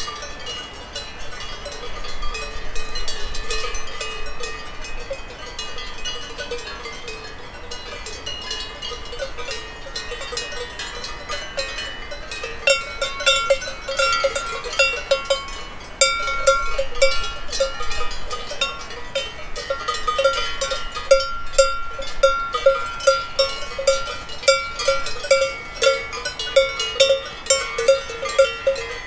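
Cow bells clanging on grazing cows, several bells ringing at once out of step. From about twelve seconds in, one bell grows louder and rings in a steady rhythm of roughly two strokes a second.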